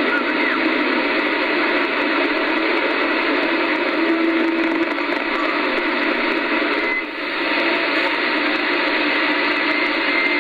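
Static hiss from a Kenwood TS-2000 transceiver's speaker: shortwave band noise between stations, with a few faint steady carrier whistles and a brief dip about seven seconds in.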